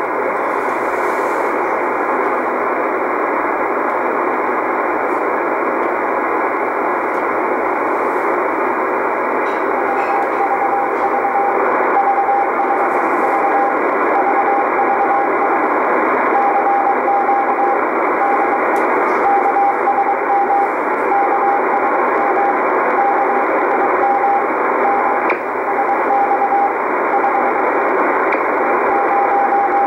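Shortwave receiver in CW mode on 16.914 MHz: steady static hiss, and from about ten seconds in a single-pitch Morse code tone keying on and off in dots and dashes, the CW marker of maritime coast station KSM.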